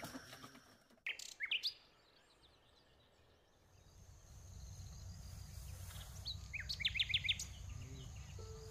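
Wild birds chirping: a few short chirps about a second in, then, after a brief hush, a quick run of six or so chirps about seven seconds in. Under them is a low, steady background noise of open country.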